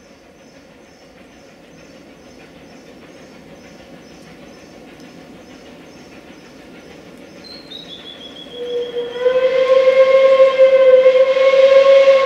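Steam locomotive whistle giving one long, loud, steady blast, starting about eight and a half seconds in and still sounding at the end. Before it, the approaching train's noise slowly grows louder.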